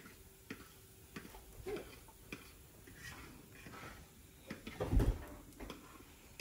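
Quiet kitchen with a few faint clicks and a single low thump about five seconds in.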